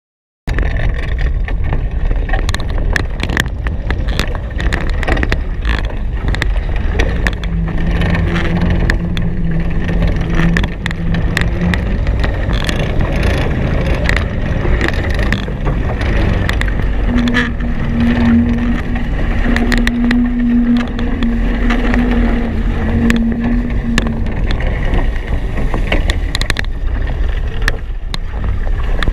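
Wind buffeting the microphone and water rushing past the hulls of a Hobie Cat 16 catamaran sailing fast, with frequent knocks and a low steady hum that comes and goes.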